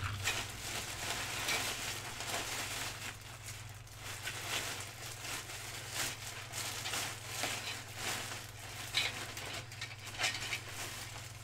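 Clear plastic bag crinkling and rustling as hands dig through it, with a few sharper crackles along the way. A steady low hum sits underneath.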